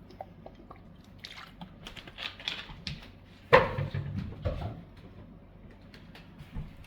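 Kitchen handling sounds while a pot is being seasoned: light clicks and rustling, then a sharp clunk with a short ring about three and a half seconds in, and a softer knock a second later.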